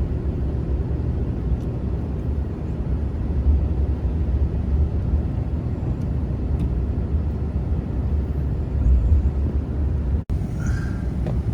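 Steady low rumble of a vehicle driving, engine and tyre noise; the sound drops out for an instant near the end.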